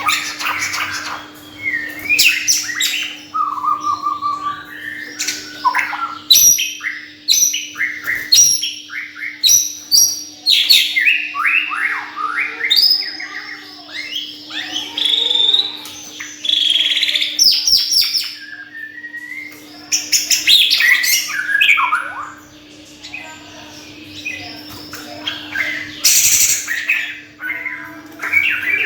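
Caged songbird singing and chirping in a near-continuous run of quick, sharp notes and short whistled glides, with only brief pauses.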